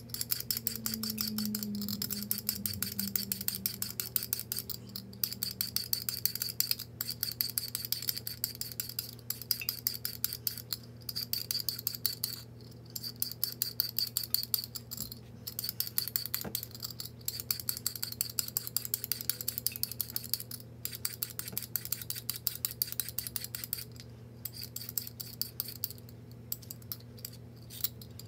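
A kitchen knife cutting a carrot on a cutting board: a fast, even run of crisp clicks, several a second, in stretches of a few seconds with short pauses between. A steady low hum runs underneath.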